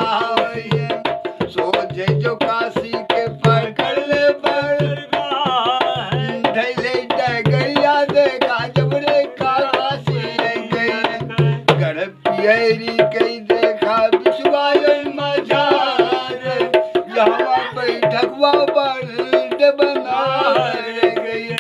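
Aalha folk ballad sung by men's voices over a dholak, the rope-tensioned barrel drum keeping a steady beat with a deep bass stroke about every three-quarters of a second.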